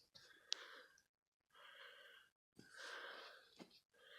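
Faint breathing close to the microphone: three soft breaths, with a small click about half a second in.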